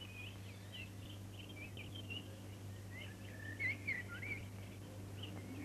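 Small birds twittering: busy runs of short, quick chirping notes, a little louder a bit over halfway through, over a low steady hum.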